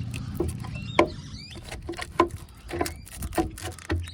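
Plastic fog light housing being pushed into its bumper opening on a 2018 Ford F-150: about a dozen irregular sharp clicks and knocks, with a few brief plastic squeaks.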